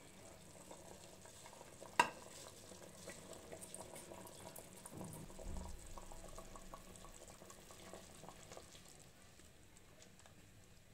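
Soaked rice poured from a steel bowl into a pressure cooker of spiced biryani liquid, with one sharp metal clink about two seconds in. Then a spatula stirs the rice through the liquid in a run of small wet crackles and scrapes.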